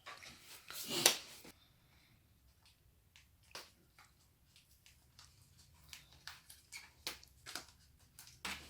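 Computer parts being handled: a louder rustling clatter about a second in, then scattered light clicks and taps.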